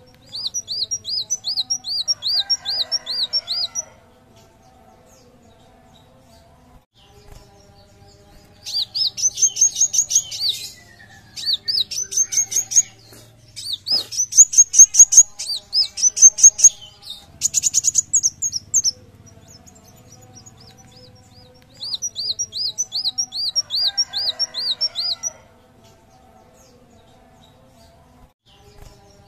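Kolibri wulung sunbird singing: fast runs of high, sharp, repeated notes in bursts of about three seconds, several in a row in the middle, with short pauses between.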